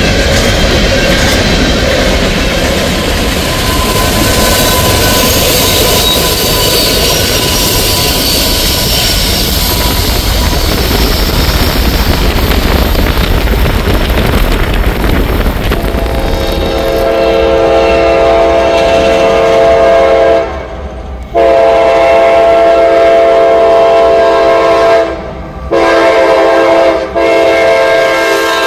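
Steady rumble of a freight train's loaded gravel hopper cars rolling past, then about 17 seconds in a CSX diesel locomotive's air horn starts sounding the grade-crossing signal: two long blasts, a short one, and a long one that carries on.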